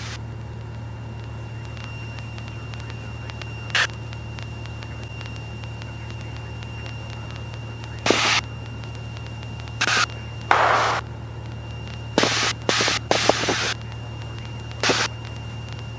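Steady low drone of a Cessna 172E's Continental O-300 six-cylinder engine in cruise-descent, heard in the cockpit. Several short crackling bursts break in about four seconds in and again from about eight seconds on.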